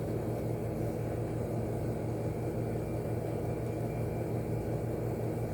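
Steady low background hum with a faint even rushing noise, unchanging throughout; no distinct events stand out.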